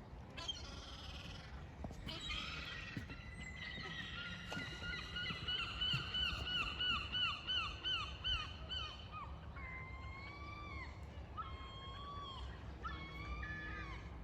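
A gull calling: a few calls, then a long rapid run of repeated yelping notes, followed by several separate calls near the end.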